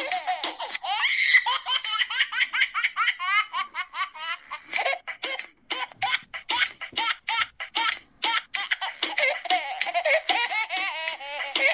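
Baby laughter cut into a music track: quick, evenly repeated high giggles in a steady rhythm, breaking into short separate bursts through the middle before running on densely again near the end.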